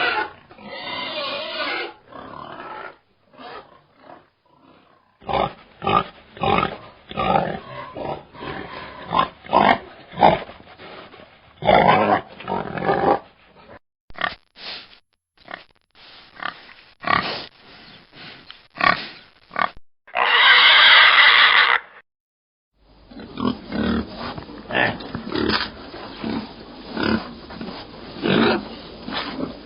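Pigs grunting in a run of short, separate grunts. About two-thirds of the way through comes a louder, higher cry lasting about two seconds, then a brief break and more grunting.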